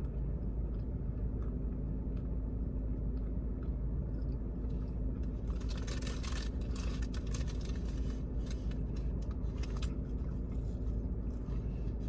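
Steady low rumble of a car cabin with the engine idling, and from about five seconds in a run of crisp crackling eating sounds: chewing and food-wrapper handling close to the microphone.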